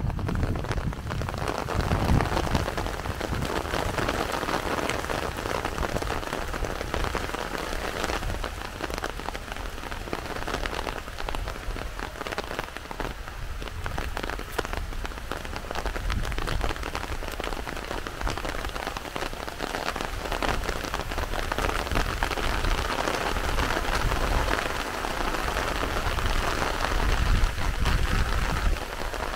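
Heavy rain falling steadily, a dense patter of drops on surfaces. A low rumble swells briefly near the start and again near the end.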